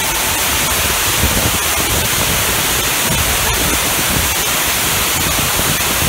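Large waterfall pouring over a tunnel mouth, heard from inside the tunnel: a loud, steady rush of falling water.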